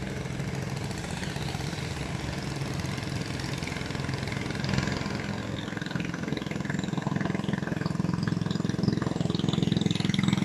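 Small motorboat's engine running steadily, a little louder in the second half.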